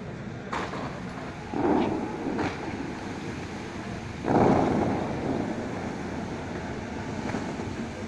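Dubai Mall fountain's water jets shooting up with a rushing whoosh over a steady hiss of falling water. A few sharp bursts come in the first two and a half seconds, and the loudest, longest rush comes a little after four seconds in.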